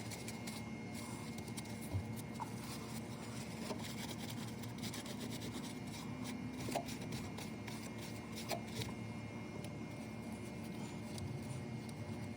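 Rubbing and scraping at a car battery's terminals while corrosion and cleaning water are wiped off, in many short strokes with a few light clicks.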